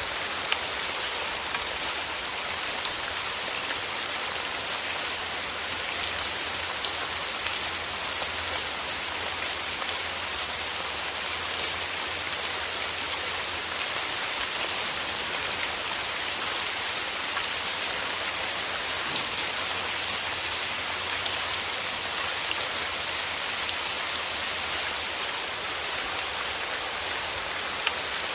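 Steady rain falling, an even hiss with many small drops ticking on surfaces.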